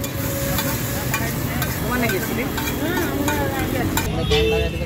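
Metal spatula scraping and clacking against a large flat pan as chow mein noodles are stir-fried over high heat, with the noodles sizzling steadily.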